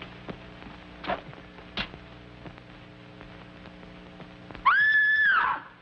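A woman's high-pitched scream, held for about a second near the end. It rises at its onset and falls away as it stops, over the steady hum and faint clicks of an old film soundtrack.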